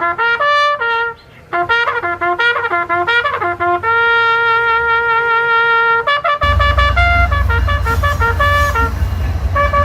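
Music: a trumpet-led brass melody playing short notes and then a long held note, with a heavy low bass coming in about six seconds in.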